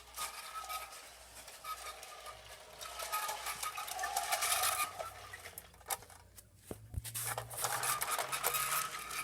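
S scale model train running on its track: a steady rumble of wheels on the rails with a faint whine from the motor. It drops away briefly about two-thirds of the way through, and a low hum comes in near the end.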